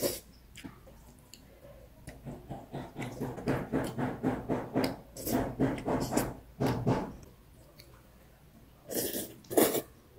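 A person slurping sago noodles, two quick noisy slurps near the end. Before them comes a run of quick rhythmic sounds lasting a few seconds.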